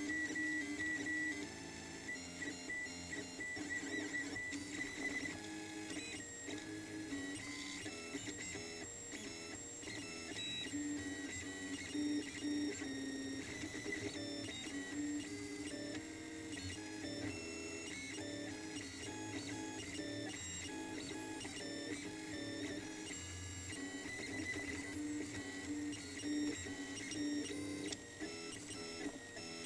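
Prusa i3-type RepRap 3D printer printing, its stepper motors whirring in steady tones that shift pitch in steps as the print head changes speed and direction.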